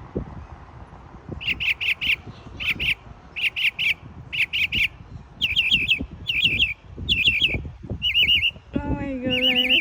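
A songbird singing: short groups of three or four quick, high notes, repeated over and over, with the note shape changing about halfway through. Near the end a lower, held sound joins in briefly.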